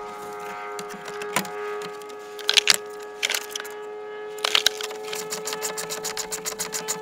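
Screws being turned into the plastic underbody engine cover with a hand tool: scattered knocks and clicks, then from about five seconds in an even run of clicks, about six a second. A steady humming tone with overtones runs underneath.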